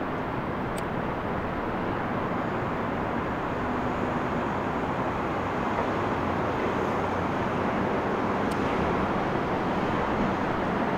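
Steady city traffic noise: an even rumble and hiss with no breaks. A single sharp click comes late on.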